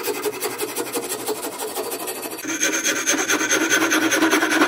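Steel rasp stroked back and forth across a hickory axe handle, a steady rasping of wood being shaved down as the handle's sides are flattened. It grows louder about halfway through.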